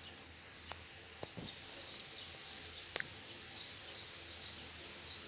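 Quiet background hiss with faint, high, short chirps scattered throughout, a few light ticks, and one sharp click about three seconds in.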